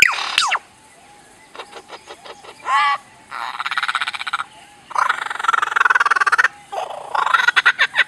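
Superb lyrebird mimicking sounds: a falling laser-like sweep at the start, then a few clicks, a short warbled note, and stretches of fast buzzy rattling trills.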